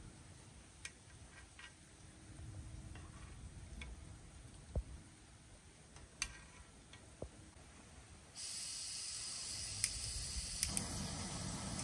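Faint, scattered clicks and small knocks of a spoon and chicken pieces going into a pot of buttermilk marinade. About eight seconds in, a steady high hiss starts suddenly and carries on.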